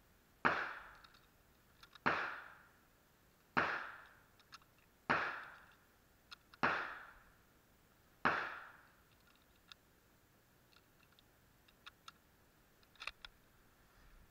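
Six gunshots about a second and a half apart, each trailing off in an echo, followed by a few faint clicks near the end.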